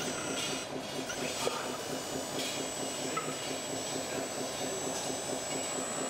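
Radio-controlled model trucks and construction machines running: a steady mechanical whir of small motors and gears, with a thin high whine.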